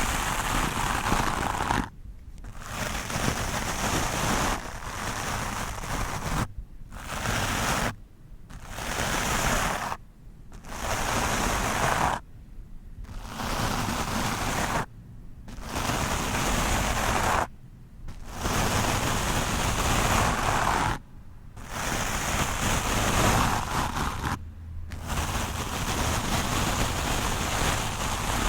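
Stiff wooden brush scrubbed directly over a microphone: a dense scratchy hiss in strokes of one to three seconds, each broken by a brief silent pause.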